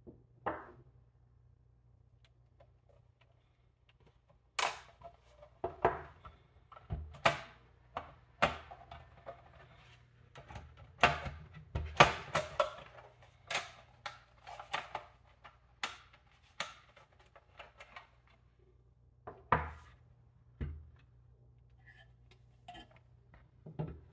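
Irregular clicks, taps and knocks of a Lenovo ThinkCentre M73 Tiny's casing and parts being handled and opened by hand. The sounds come in quick clusters and are busiest in the middle.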